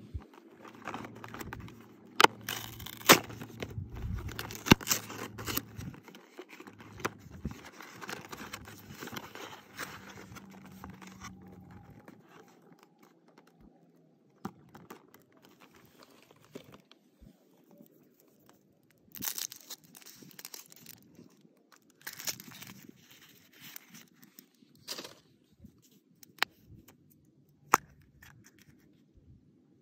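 Hand unboxing of Kinder Surprise eggs: the cardboard box is torn open with sharp snapping tears and crinkling over the first several seconds. Then come sparser rustles and clicks of handling the wrapped egg, and a sharp click near the end as the plastic toy capsule is pulled open.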